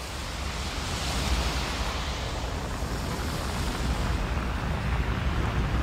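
Pyroclastic flow of hot volcanic ash and gas surging over the sea: a continuous deep rumble with a rushing hiss over it, growing a little louder in the first second or so.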